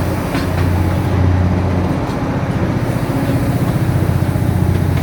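Darjeeling toy train running, a steady loud low rumble with fast fine pulsing.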